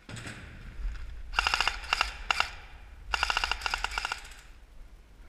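Airsoft gun firing on full auto: a short burst and a couple of single shots, then a longer burst of about a second, with a rapid rattle of about fifteen shots a second. A rustling noise comes before the first burst.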